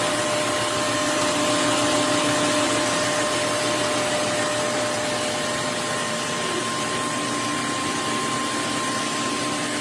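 Roborock F25 LT wet-and-dry vacuum mop running on its own in its self-washing cycle: a steady motor hum and rush of air with a constant whine.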